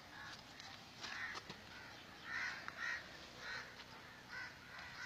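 Faint bird calls: about eight short calls at irregular intervals, separate from one another.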